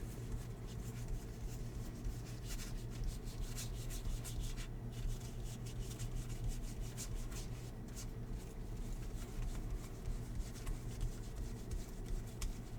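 Baseball trading cards from a 2022 Topps Series 1 jumbo pack being slid and flipped through by hand: soft rubbing and light flicks of card stock, over a steady low hum.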